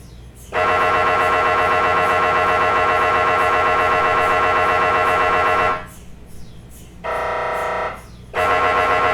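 MRI scanner's gradient coils buzzing through a scan sequence. A loud, steady, pitched buzz lasts about five seconds and stops. After a pause comes a shorter, quieter buzz, and the loud buzz starts again near the end.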